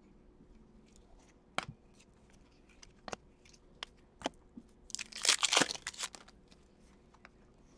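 A few sharp taps, then a foil trading card pack torn open by hand, its wrapper crackling and crinkling for about a second near the end.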